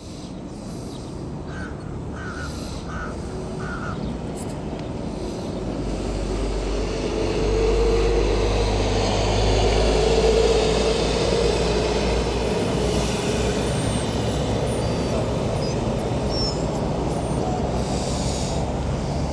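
Street traffic noise, with a heavy vehicle's low rumble building up and passing through the middle. A crow caws four times in the first few seconds, and small birds chirp faintly later on.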